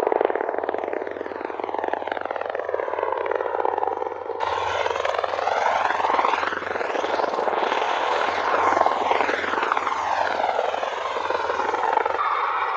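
MV-22 Osprey tiltrotor aircraft with its proprotors and turboshaft engines running: a steady rotor noise whose tone keeps sweeping up and down as the aircraft moves. The sound changes abruptly about four seconds in.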